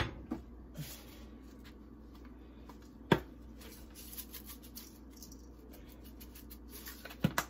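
Kitchen handling sounds: a sharp knock at the start and a louder single knock about three seconds in, then faint light ticks as a spice shaker is shaken over seasoned raw chicken in a stainless steel bowl.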